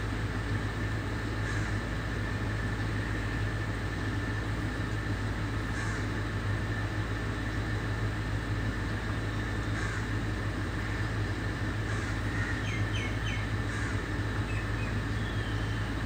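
Steady low outdoor rumble with a faint steady high tone. A few faint, quick, high bird calls come in a cluster about three-quarters of the way through, and one more short call comes near the end.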